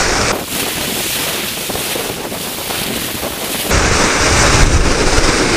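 Strong wind buffeting the microphone over waves breaking and washing against concrete tetrapods. The heavy wind rumble drops away shortly after the start and returns about two thirds of the way through, leaving mostly the hiss of surf in between.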